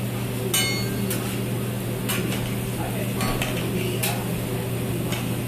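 Omelets sizzling on a flat-top griddle while a metal spatula clinks and scrapes against the steel plate, a ringing clink about half a second in and a few more clinks after. A steady low hum runs underneath.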